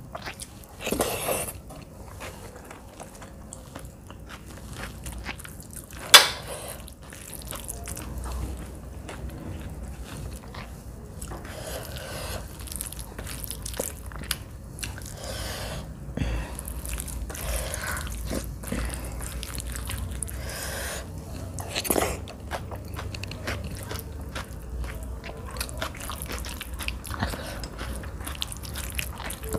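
Close-miked eating sounds: a person chewing mouthfuls of rice and mashed vegetable bharta, with wet smacks and clicks and the squish of a hand mixing rice on a banana leaf. A sharp click about six seconds in is the loudest moment.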